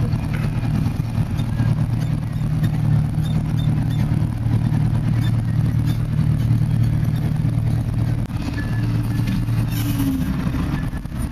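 Tractor engine running steadily under load, heard from inside the cab while pulling a seed drill across the field; the engine note shifts about ten seconds in.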